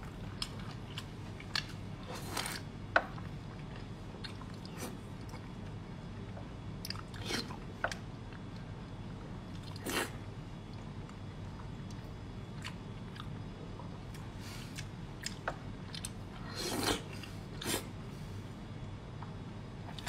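Close-miked eating: biting and chewing braised fatty pork, with many small wet clicks and a few louder, longer mouth sounds, over a steady low hum.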